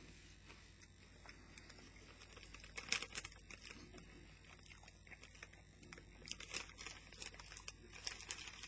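Faint crunching and chewing of a crisp chocolate-topped rice cake, with scattered sharp crackles, a louder one about three seconds in and several more near the end.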